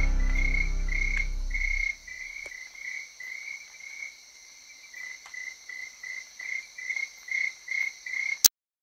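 A loud low pitched drone that stops abruptly about two seconds in, followed by a high, even chirping repeating about three times a second, cricket-like; a sharp click near the end cuts it off.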